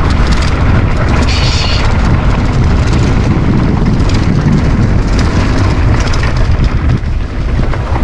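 Steady loud rushing and deep rumble as a mountain bike descends a dirt trail: wind buffeting the bike-mounted camera's microphone, with the tyres rolling over dirt.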